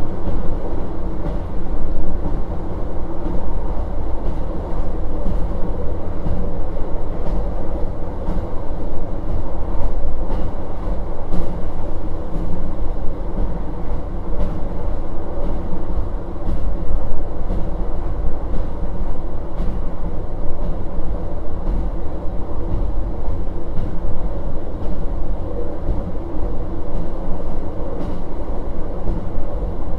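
Running sound of a JR Hokkaido KiHa 40 1700-series diesel railcar under way: a steady low drone from the diesel engine and the running gear, with occasional faint clicks of the wheels over rail joints.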